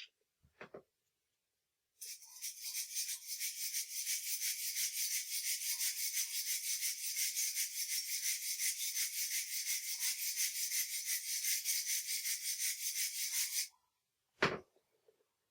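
A MIG welding arc running on aluminium with pure argon shielding: a steady, crackling hiss with a fast flutter that starts about two seconds in and cuts off abruptly near the end. A single knock follows shortly after.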